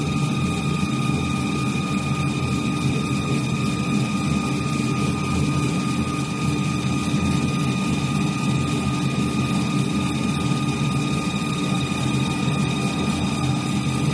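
Automatic axe-handle sanding machine running, its motors turning wooden handles against sanding belts. A steady mechanical drone with a constant high whine.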